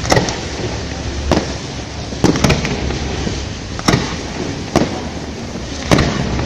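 Aerial firework shells bursting in the sky: sharp bangs at irregular intervals of about a second, with a quick run of three about two and a half seconds in, over a steady background of noise between the bangs.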